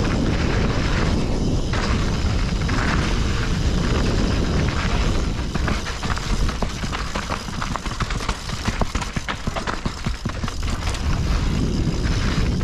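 Wind rumbling on a mountain bike's camera microphone while riding a rocky technical trail, with a dense run of rattling clicks and knocks from the bike over rocks in the middle.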